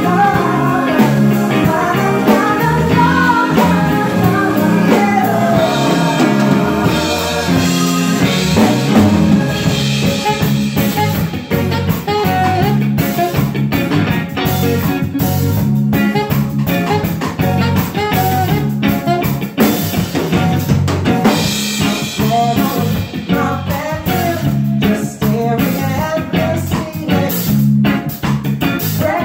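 Live soul band playing: drum kit keeping a steady beat under bass guitar, with a woman's lead vocal singing into a microphone over the first part and again near the end.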